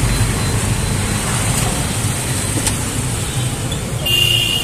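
Steady street traffic noise, vehicle engines running in the background, with a high steady tone coming in about four seconds in.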